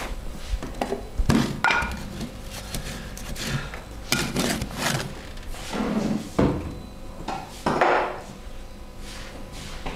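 Massage sounds: hands striking and rubbing on a person's body, an irregular string of sharp slaps and knocks with short rubbing swishes between them.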